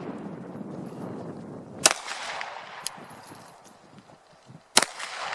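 Two pistol shots on an outdoor range, about three seconds apart, each with a short echoing tail, and a fainter sharp crack between them.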